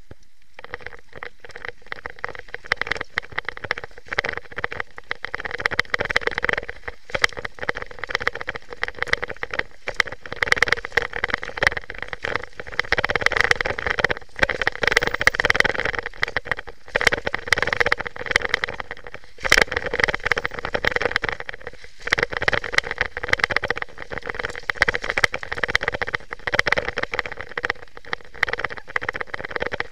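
Specialized downhill mountain bike ridden fast down a rough dirt trail: a constant rattle of many small knocks and clicks as the bike runs over bumps, over a steady rushing noise.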